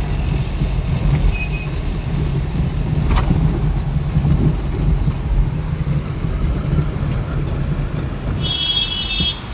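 Steady low engine and road rumble inside a moving car's cabin. A single click about three seconds in, and a high horn sounding for about a second near the end.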